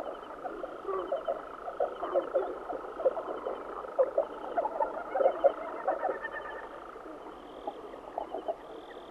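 A flock of common house martins chattering: many short, quick low calls, with a rapid high trilled chirp now and then. The calls are busiest in the first six seconds and thin out afterwards.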